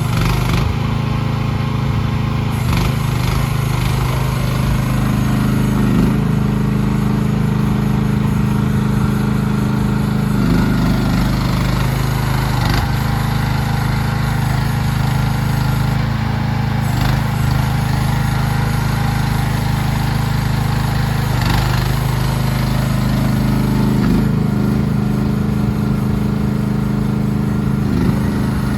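CFG QK16R mini excavator's engine running steadily, its pitch shifting slightly now and then, with a few brief knocks.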